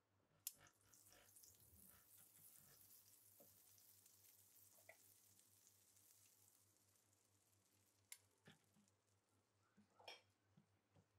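Butter sizzling faintly on the hot ribbed plate of an electric sandwich grill. A high hiss starts about half a second in and slowly dies away over several seconds, and a few light knocks come near the end.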